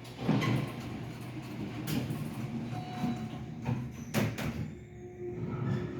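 Elevator car and doors running: a low rumble with several sharp clunks, two of them close together about four seconds in.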